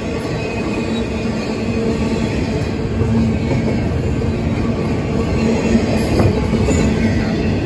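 Long double-stack intermodal freight train rolling steadily past: a continuous rumble of steel wheels on the rails, with a steady tone running through it, growing slightly louder partway through.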